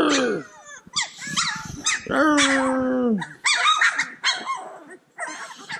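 A litter of Cane Corso puppies yipping and whining over one another in many short, high cries, with one longer whine about two seconds in that drops in pitch at its end.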